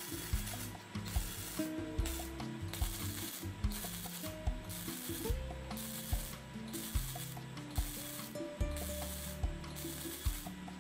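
Gasless (flux-core) MIG welding arc crackling in short bursts of about half a second, roughly one a second with brief pauses between: stitch welding a bead on thin steel square tubing so as not to burn through it.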